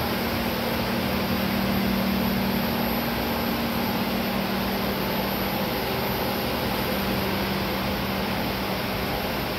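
Steady equipment-room noise of a liquid-cooled TV transmitter's cooling pumps and fans running: an even rushing sound with a low hum and a faint, steady high whine.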